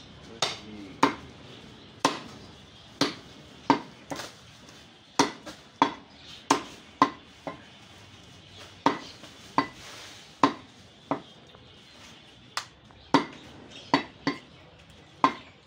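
Heavy butcher's knife chopping beef on a wooden stump block: sharp chops about once a second, some in quick pairs, with a few short pauses, about twenty in all.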